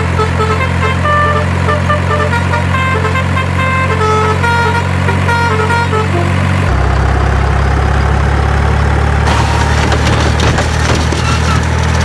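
Dubbed-in truck engine sound effect, a steady low hum, with a tune of short high notes over it. About seven seconds in the notes stop and the hum shifts lower and fuller, with a hiss added a couple of seconds later.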